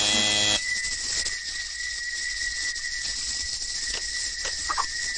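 Old film soundtrack: a held sung note ends about half a second in, then a steady high whistle-like tone over faint hiss, with a few light knocks near the end.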